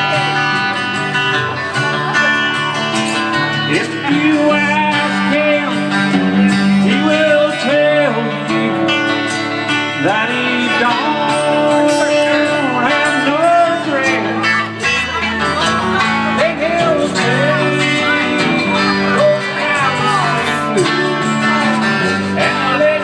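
Live acoustic guitar playing country-style music, with a man's voice singing over it.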